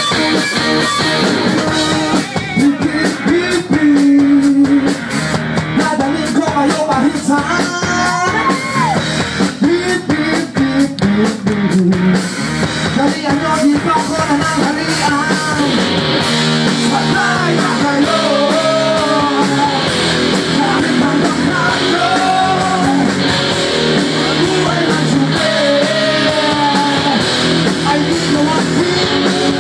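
Rock music with electric guitar, drums and a singing voice.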